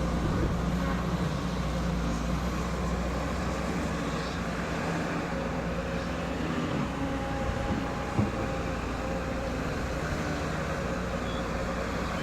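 Excavator diesel engine running steadily, with one sharp knock about eight seconds in.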